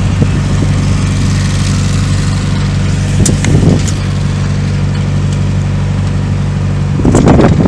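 A boat's engine running steadily: an even, low drone with a rushing hiss over it.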